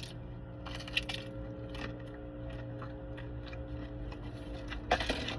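A person chewing a mouthful of steak, bacon and cheese pie, with a few short crisp crunches and mouth clicks from the flaky pastry, the loudest near the end, over a steady low hum.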